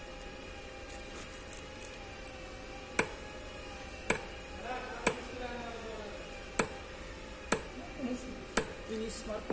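Hammer tapping to stamp identification marks on an engine's connecting rods, so that each rod goes back into its own cylinder: six sharp metallic taps about a second apart, starting about three seconds in.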